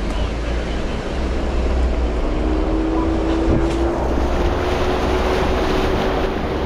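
Off-road vehicle driving on a trail: a steady low engine and drivetrain rumble under wind and road noise, with a thin whine that comes in about two seconds in and rises slightly in pitch.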